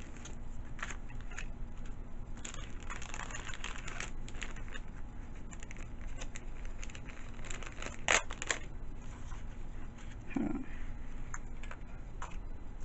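Paper rustling and crinkling with small scrapes and taps as a paper cut-out is worked into a folded paper pocket, with one sharper click about eight seconds in.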